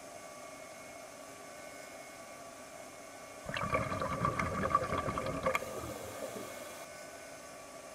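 A burst of underwater bubbling and rumbling, about two seconds long, most likely a diver's exhaled air bubbles from a scuba regulator, over a steady hiss.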